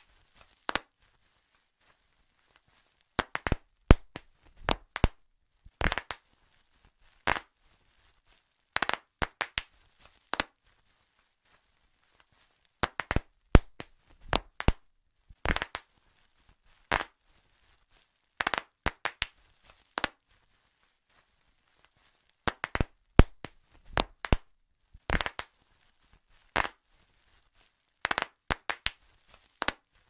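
Bubble wrap being popped: sharp pops, some single and some in quick runs of several, with pauses of a second or two between clusters.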